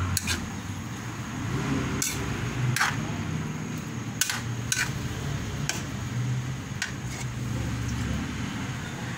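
Metal spatula scraping and clinking against a steel wok as stir-fried rice noodles are tossed, with about seven sharp clinks scattered through, over a steady low hum.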